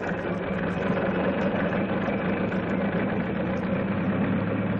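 Sound effect of the Wright Flyer's piston engine running steadily before takeoff, a continuous low even drone.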